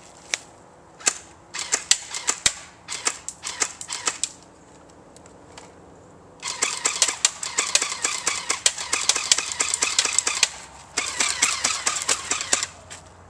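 Airsoft Thompson M1A1 submachine gun firing. First come scattered single shots; after a short pause come two long, rapid full-automatic bursts, the second one shorter.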